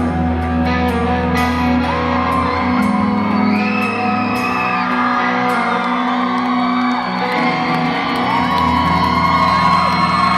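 Live rock band with electric guitar holding long sustained chords in a large hall, while audience members whoop and whistle over it.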